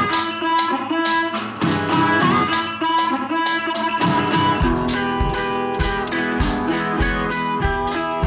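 Background music: plucked guitar playing, with a low beat coming in about halfway through.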